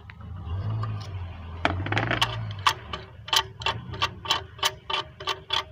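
Ratchet wrench clicking in a steady run of about three clicks a second as a spark plug is turned in a Renault 1.4 engine.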